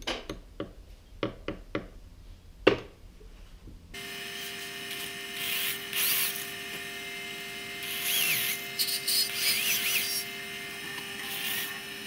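A series of sharp clicks and knocks as small tool and pen parts are handled on a workbench. Then a cordless drill runs steadily, with several louder bursts of rubbing and squeaking as a wooden pen blank is worked against the spinning chuck.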